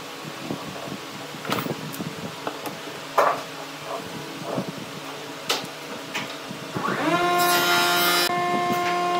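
Metal-and-wood clicks and knocks of steel F-clamps being fitted and tightened on a glued wooden box, over a steady hum. About seven seconds in, an electric power tool's motor spins up with a rising whine and then runs steadily and loudly.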